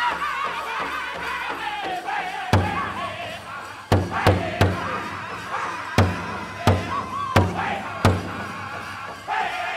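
Pow wow drum group singing a Chicken Dance song in high, wavering voices. Loud strikes on the big drum come in about two and a half seconds in, unevenly spaced.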